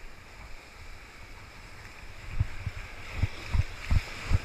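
Steady wash of surf breaking on jetty rocks. From about halfway in, a run of dull low thumps, roughly three a second and growing louder, as a spinning rod is jerked and its reel cranked to work a jig.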